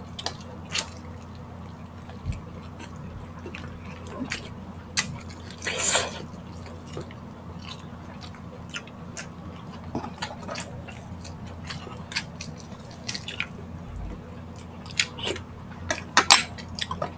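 Close-miked eating of grilled street-food skewers with rice: chewing and wet mouth clicks scattered throughout, with a longer, louder noisy burst about six seconds in and a cluster of sharp clicks near the end, over a steady low hum.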